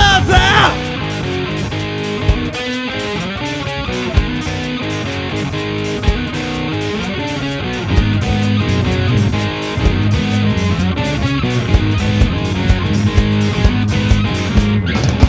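Live rock band playing an instrumental passage: electric guitar chords ringing over bass, with sparse drum hits that settle into a steady beat about halfway through.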